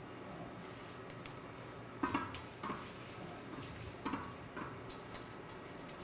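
A few light metallic clicks and taps, with a steady faint hum underneath, as a tape measure is worked around the rim of a steel tank head; the clearest clicks come about two seconds in and again around four seconds in.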